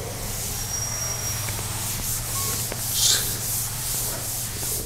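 Board duster rubbed back and forth over a chalkboard, wiping off chalk in quick repeated strokes, with one louder stroke about three seconds in.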